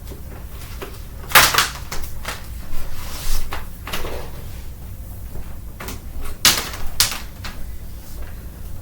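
A series of sharp plastic clicks and knocks as an upright vacuum cleaner is handled, with the strongest about a second and a half in and again near six and a half seconds.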